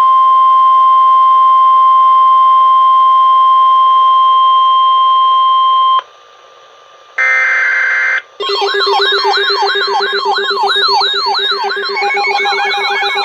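Weather-radio alert tone: one steady high beep held for about six seconds, cutting off sharply. A second later comes a one-second harsh burst of buzzing tones, then a dense jumble of many fast-cycling, siren-like wailing tones over steady drones.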